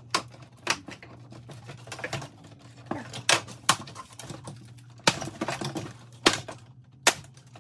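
Plastic grille shutters being pulled and pried out of a truck grille shell: irregular clicks, knocks and snaps of hard plastic, the loudest about five and six seconds in.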